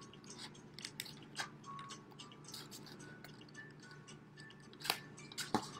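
Scissors cutting through a paper plate to make eye holes: a run of small, irregular snips, crunches and clicks of the blades in the stiff paper, with a few short faint squeaks.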